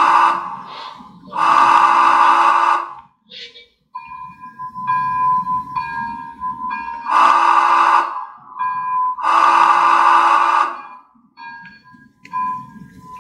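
Sound-decoder steam whistle of an HO-scale Challenger locomotive model, played through its onboard speaker. Long chime-whistle blasts come in pairs: one already sounding at the start with a second close after, then another pair about five seconds later, with a fainter wavering tone in between. Two long blasts is the steam-era signal for releasing brakes and proceeding.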